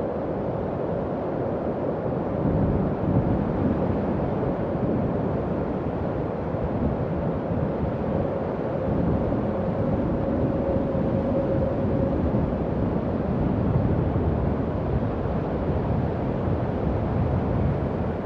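Howling wind: a continuous low rumble with a faint whistling howl that swells and fades, and gusts that rise and fall gently.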